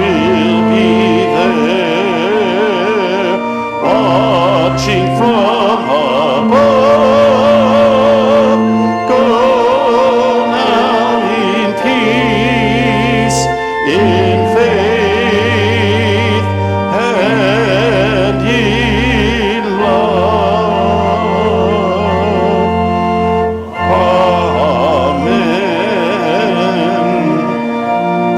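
Music: a singing voice with wide vibrato over long held chords and sustained bass notes that change every second or two.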